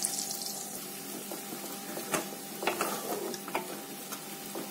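Coconut and poppy-seed paste sizzling gently in hot oil in a pan, with a few sharp scrapes and taps of a wooden spatula stirring it from about two seconds in.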